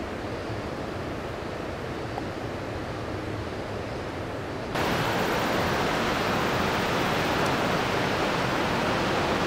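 Steady rushing of flowing water, which jumps abruptly louder and brighter about five seconds in.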